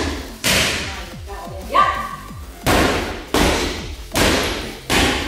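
Boxing gloves striking focus mitts: about six sharp, smacking punches at uneven intervals as a combination is thrown.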